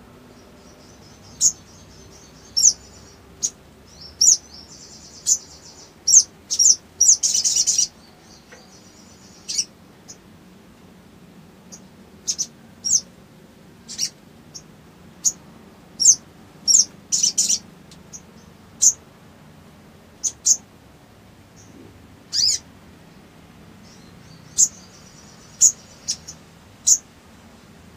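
Caged male sunbird (sogon) calling: sharp, high chirps at irregular intervals, some in quick clusters, with a few short buzzy trills in between.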